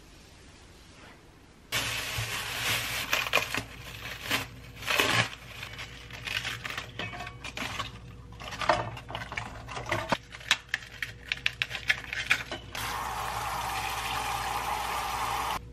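Cabbage leaves being torn off a head and handled at a stainless steel sink: crisp cracks, snaps and crinkles with splashing water. About three seconds before the end, a kitchen tap runs steadily onto the leaves in a metal bowl.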